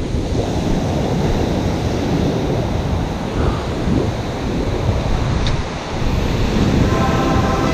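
Ocean surf breaking and washing up a sandy beach, a steady churning rush, with wind buffeting the microphone.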